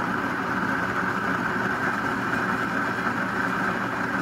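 Built-in burr grinder of a KitchenAid KES6551SX espresso machine running steadily as it grinds a single-shot dose of coffee beans.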